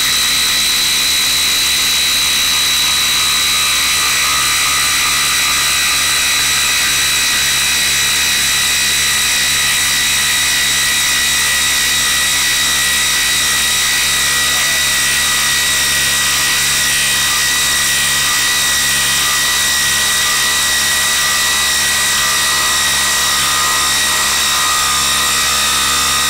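DeWalt DCF887 cordless impact driver hammering continuously under load as it drives a 10-inch lag bolt into solid wood, with a steady high whine over the rapid impacting.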